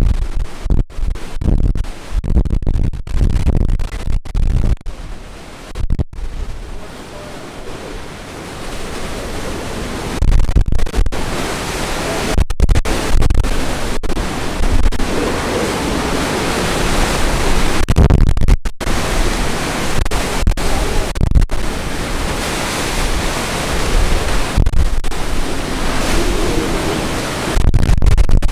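Hurricane-force wind and driving rain from a major hurricane's back eyewall, a dense steady rush with low rumbling gusts buffeting the microphone. The sound cuts out briefly several times.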